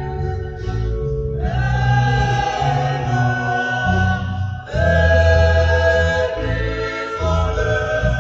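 Choral music: a choir singing held chords that change every second or so.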